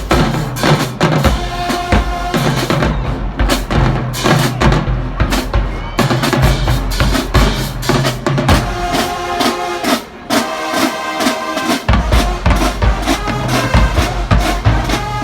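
High school marching band playing as it marches in: the drumline's bass and snare drums keep a driving beat, with the brass playing chords over it in the second half. The bass drums drop out for about two seconds, around ten seconds in.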